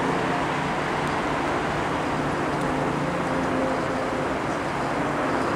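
Robinson R44 Raven helicopter flying low overhead: a steady drone from its two-blade main rotor and six-cylinder piston engine.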